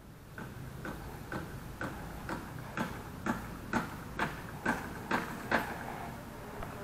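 About a dozen sharp ticks, evenly spaced at roughly two a second, getting louder as they go and then stopping.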